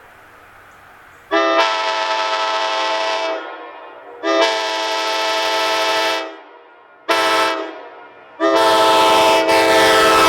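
Multi-chime train air horn sounding a chord in four blasts: two long, one short, then a long one near the end. This is the long-long-short-long grade-crossing signal.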